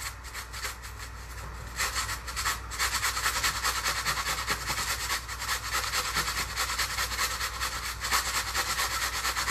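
Onion being grated on a metal box grater, a quick, steady run of rasping strokes that grows stronger about two seconds in.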